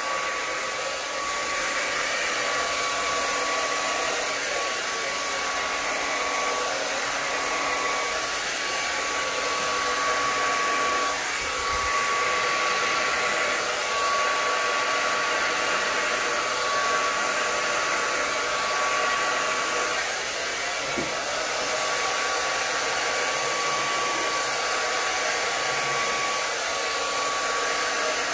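Hair dryer running steadily, blowing poured acrylic paint outward across a canvas. A steady rush of air carries a thin whine.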